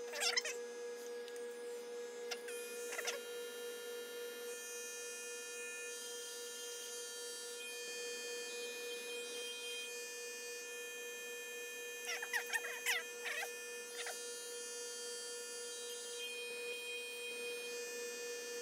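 Airbrush and its small compressor running with a steady hum, with air hissing from the airbrush as it blows across wet acrylic pour paint.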